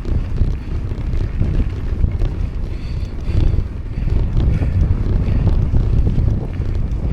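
Wind buffeting the microphone of a rider on a mountain bike, a gusty low rumble that rises and falls.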